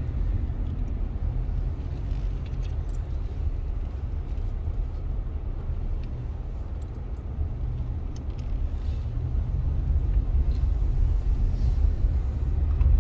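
Car cabin noise while driving slowly: a steady low rumble of engine and tyres, growing a little louder over the last few seconds.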